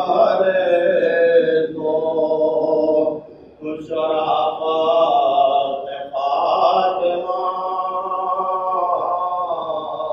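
Melodic male chanting of a mourning recitation, sung in long held phrases, pausing briefly about three and again about six seconds in.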